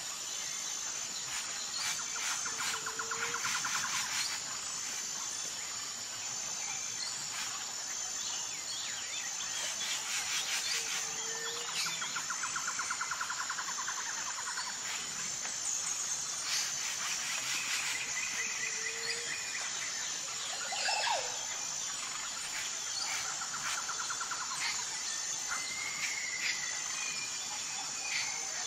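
Looped nature ambience: a steady high, pulsing insect chirring with bird chirps and trills over it. The same pattern of calls comes round again about every eight seconds.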